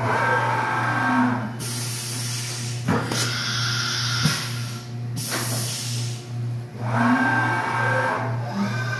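Haas VF-5 vertical machining center making rapid axis moves: the axis drives whine, with the pitch gliding down and up as the table and spindle head speed up and stop. Two rushing hisses of about a second each come in about two seconds in and again about five seconds in.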